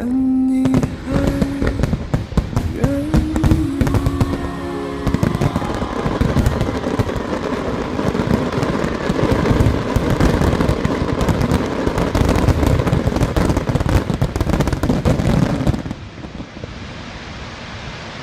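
Fireworks going off in a dense, continuous run of crackles and bangs, with music playing over the first few seconds. The bangs stop near the end, leaving a steady hiss.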